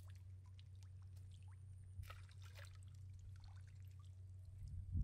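Faint water splashing and trickling, with a short burst of splashing about two seconds in and a low thump near the end, over a steady low hum.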